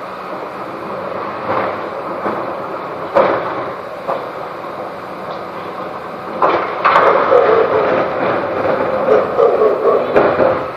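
Bin lorry running steadily while blue recycling wheelie bins are emptied into it: a few single knocks, then from about six seconds in a longer spell of louder rattling and clattering as a bin is tipped and shaken out.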